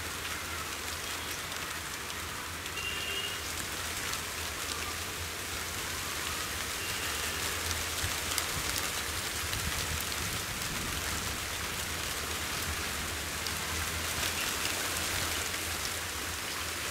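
Shallow muddy pond water splashing and trickling as hands grope through it, heard as a steady hiss flecked with faint small clicks over a low rumble.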